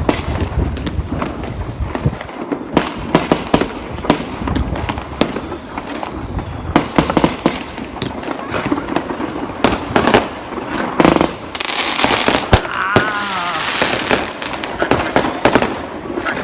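New Year's fireworks and firecrackers going off: many sharp bangs in quick, irregular succession, overlapping each other.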